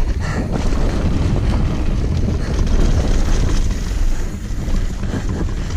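Steady wind rush buffeting the camera microphone, mixed with the rumble of mountain-bike tyres rolling fast over a dirt trail.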